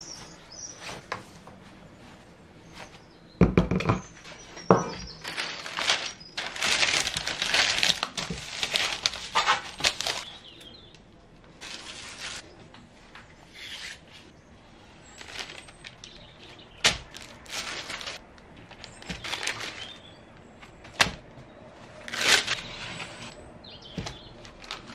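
Puff pastry being handled on a parchment-lined baking tray: crinkling and peeling of plastic film and baking paper, loudest for several seconds near the start, with a few sharp knocks of hands and tools on the tray.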